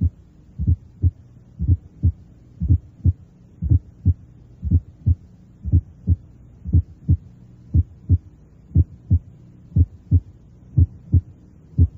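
Heart sounds heard through a stethoscope bell, about one beat a second, each beat a pair of short low thumps, over a steady low hum. They demonstrate a low-pitched atrial (fourth) heart sound just before the first heart sound, which firm pressure on the bell smothers by tensing the skin.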